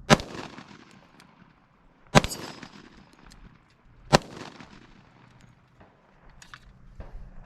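Three shots from a 10mm semi-automatic pistol, about two seconds apart, each a sharp crack followed by a short echo.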